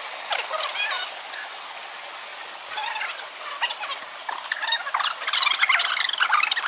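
Many short bird chirps and squawks, a few at first and thickening into a busy chorus from about three seconds in.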